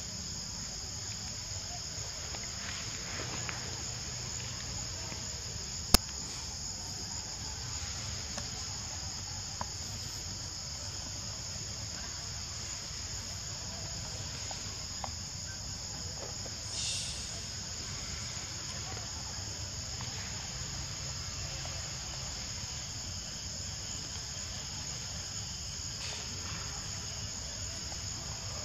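Steady, high-pitched chorus of forest insects. A single sharp click comes about six seconds in, and a brief louder burst of the insect sound comes a little past the middle.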